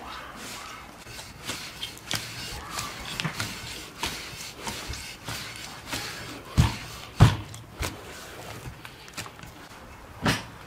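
Hands kneading soft dough in an enamel bowl: irregular pressing and squishing, broken by dull thumps, the loudest two about two-thirds of the way in and another near the end.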